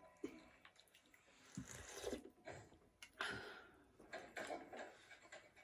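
Faint eating sounds: soup sipped from a bowl, chewing, and a few light clicks of a spoon against a bowl and plate, as short separate sounds.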